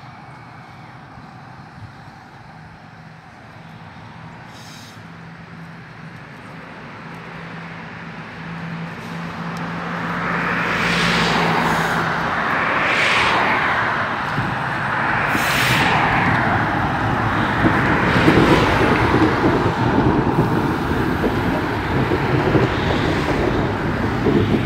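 Vintage ex-Stern & Hafferl electric tram approaching on its track and passing close by. A steady low hum in the first half gives way to rolling wheel-on-rail running noise that grows steadily louder, with several swells, as it nears.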